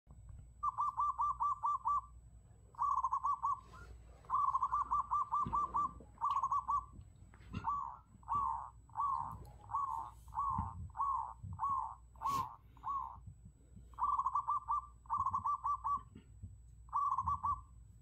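Zebra dove cooing: repeated short bursts of fast, staccato trilled coos. In the middle is a run of slower single coos, about two a second, before the fast trills return.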